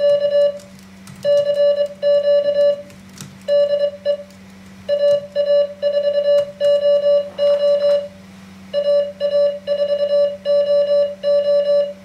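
MFJ-493 memory keyer's sidetone sending Morse code: one steady beep keyed on and off in dits and dahs, spelling out a general call, CQ CQ DE AA4OO AA4OO K, as it is typed. Faint laptop key clicks run underneath.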